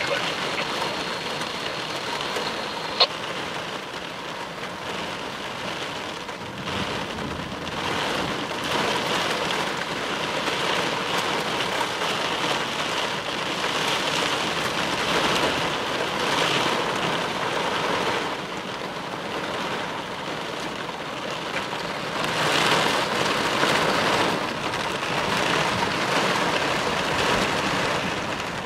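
Heavy wind-driven rain pounding on the car's roof and windshield during a severe thunderstorm, a dense hiss that swells and eases several times in gusts.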